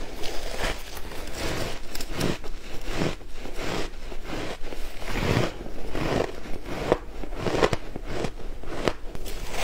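Close-miked chewing and crunching of mouthfuls of dyed shaved ice, an irregular run of crisp crunches several times a second.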